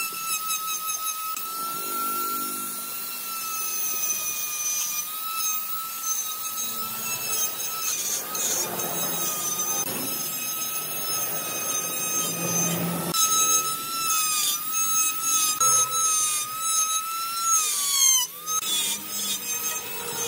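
Handheld electric die grinder with a carving burr running at high speed, a steady high whine that sags and wavers as the burr bites into the wood, over the rasp of wood being cut away. The whine drops sharply once near the end and picks up again.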